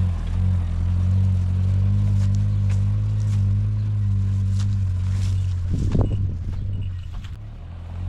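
Heavy farm machinery engine running steadily at a constant speed. A sudden low thump comes about six seconds in, after which the engine sound drops lower for a moment.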